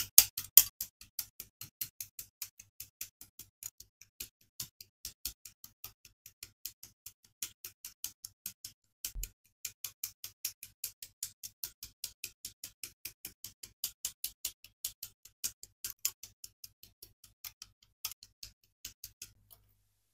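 Hobby nippers snipping plastic model-kit parts off their sprue: a quick, even run of sharp plastic clicks, about four or five a second, loudest in the first second.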